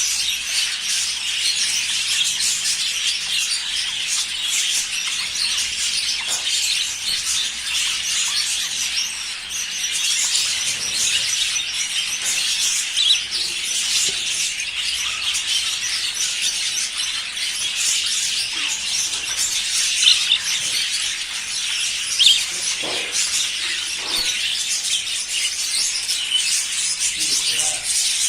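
A flock of budgerigars chattering and warbling: a dense, unbroken mass of high chirps and tweets, with now and then a louder single call standing out.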